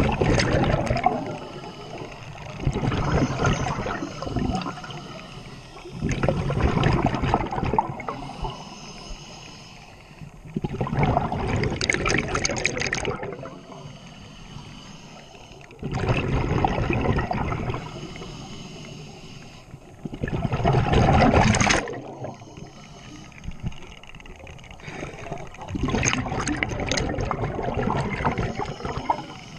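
Scuba diver's regulator exhaling underwater: a bubbling burst of exhaust bubbles lasting about two seconds, coming every four to five seconds, seven times, with quieter stretches between breaths.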